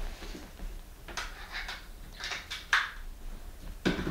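Handling noise from plugging in a power adapter: a scatter of light clicks and scrapes as the cable is drawn along and the plug is worked into the wall outlet, with a sharper knock near the end.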